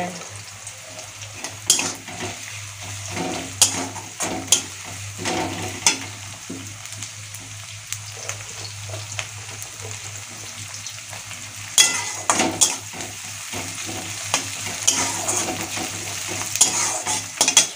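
Sliced onions and chopped green and dried red chillies sizzling in hot mustard oil in a metal kadai. A flat metal spatula scrapes and knocks against the pan as they are stirred, in sharp strokes now and then, with a cluster of them about two-thirds of the way through.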